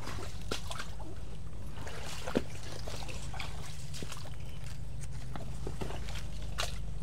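Footsteps in rubber boots through wet forest undergrowth: irregular crackles and snaps of brush and twigs, with one sharper snap about two and a half seconds in, over a steady low rumble.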